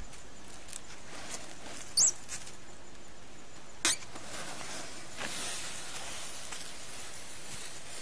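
Clear plastic stretch wrap pulled off a hand roll and wound taut around a shelter frame, giving a light crackling rustle. A short, high, rising squeak comes about two seconds in, and a sharp snap about two seconds later.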